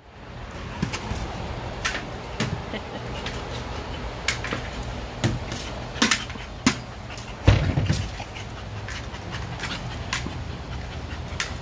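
A dog playing with a large hard plastic ball, pushing and mouthing it across artificial turf: a string of irregular knocks and thumps from the ball, the loudest about seven and a half seconds in, over a steady rushing background.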